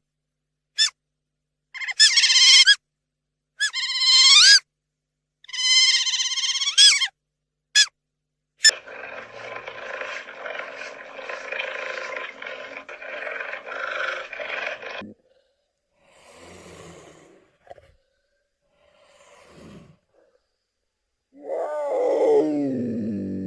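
A run of different animal calls, cut one after another. First come a few quick high chirps, then three loud pitched calls that bend up and down. After that comes a rough, noisy call lasting about six seconds, then a few faint scraps. Near the end a falling tone settles into a held chord.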